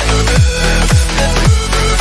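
Electronic dance music with a heavy kick drum about twice a second, each kick dropping sharply in pitch, under sustained synth tones.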